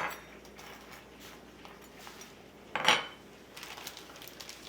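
Kitchen dishes and utensils clinking, with one sharp, louder clatter about three seconds in and a run of lighter clicks near the end.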